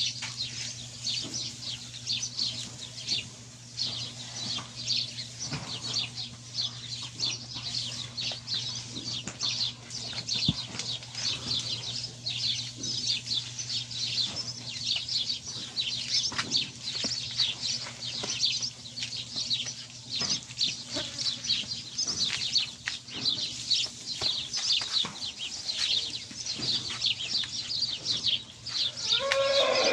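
Many small birds chirping continuously, a dense run of short high chirps over a steady low hum.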